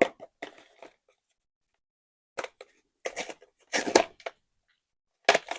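Small plastic figures and packaging being handled: a few short, separate bursts of clicks and rustles.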